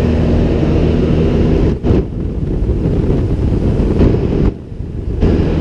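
Piston engine and propeller of a high-wing light aircraft droning steadily in cruise, heard inside the cabin. The sound dips briefly twice, near two seconds in and again shortly after four seconds.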